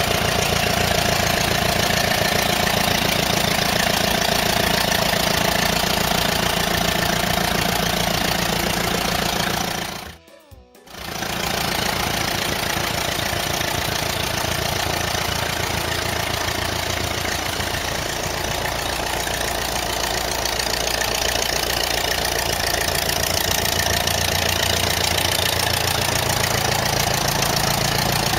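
Tractor engine sound effect running steadily under background music, cutting out briefly about ten seconds in before starting again.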